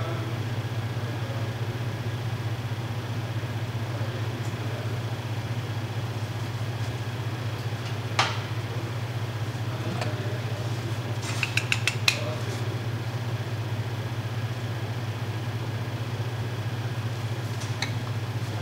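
A steady low mechanical hum, with light clicks of kitchen utensils over it: one sharp click about eight seconds in and a quick run of about five taps a few seconds later.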